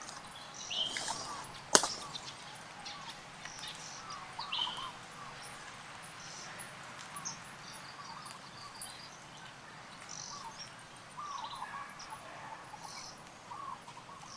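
Scattered short, high chirps and squeaks from small animals, with a sharp click about two seconds in.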